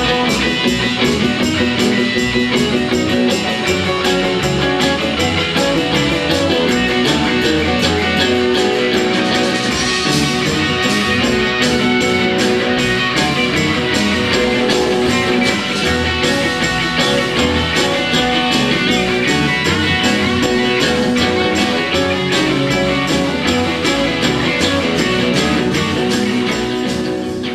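Live electric blues band playing: electric guitars over bass and drums with a steady beat, starting to fade out at the very end.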